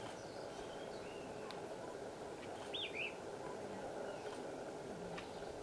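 A few short, high bird chirps, the loudest a pair of quick notes about three seconds in, over a steady low background rush, with a couple of faint ticks.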